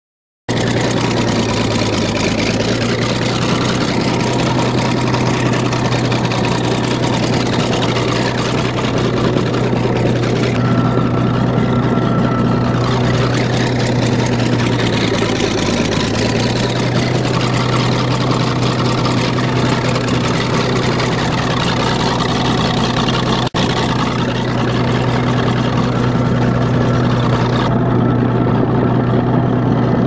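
Bulldozer engine running steadily at a low pitch while plowing snow. Its note sags briefly twice, about two seconds in and again about halfway through.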